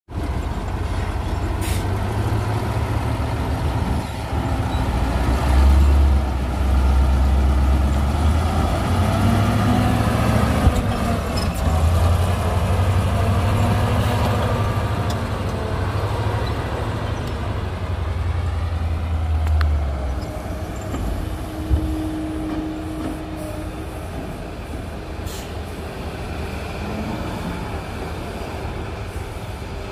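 Heavy diesel engines of a dump truck and a Kobelco SK380XD excavator running, a deep steady rumble that eases about two-thirds of the way through.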